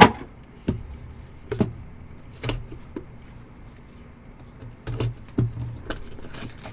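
Irregular taps and knocks of trading cards and packs being handled on a table, the loudest right at the start and a cluster of them near the end.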